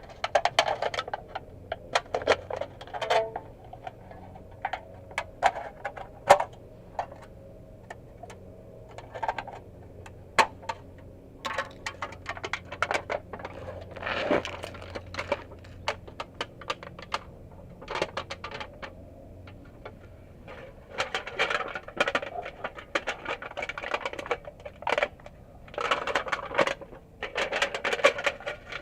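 Irregular metallic clicks, clinks and rattles of hand tools and hardware being handled during exhaust repair work, with a few short stretches of scraping or crinkling.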